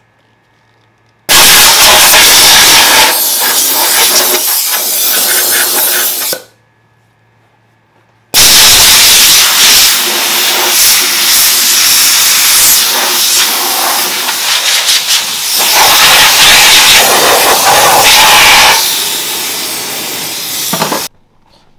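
Compressed-air blow gun blasting in two long, loud hisses: a first burst of about five seconds, then a short pause, then a longer blast of about twelve seconds whose strength rises and falls as the trigger is worked.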